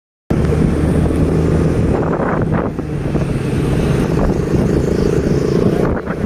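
Motor vehicle engine running steadily, with wind rushing over the microphone while riding along.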